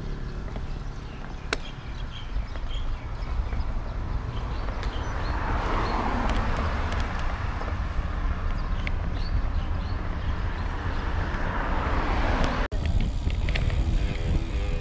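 Road traffic heard from the road: a steady low rumble, with a passing vehicle's hiss swelling and then fading over several seconds in the middle. The sound drops out for a moment near the end.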